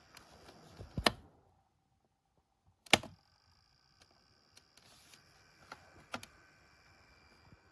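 A few sharp clicks: two loud ones about two seconds apart with dead silence between them, then two fainter ones later, over a faint steady hum.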